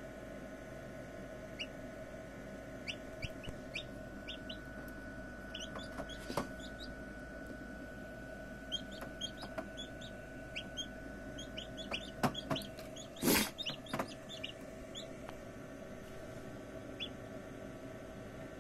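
Newly hatched chicks peeping: many short, high peeps, busiest in the middle, over a steady hum. A brief loud bump comes about 13 seconds in.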